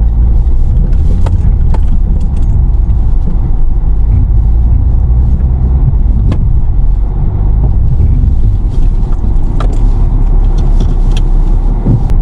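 A two-wheel-drive vehicle's engine running steadily under load as it climbs a muddy hill. A loud low rumble continues throughout, with a few scattered sharp clicks.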